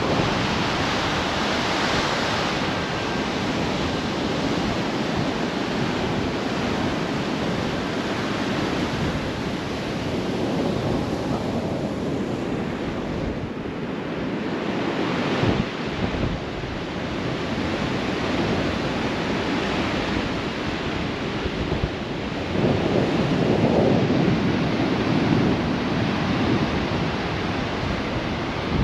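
Strong calima sandstorm wind buffeting the microphone, with surf breaking on the beach behind it. The wash rises and falls in gusts, strongest near the end.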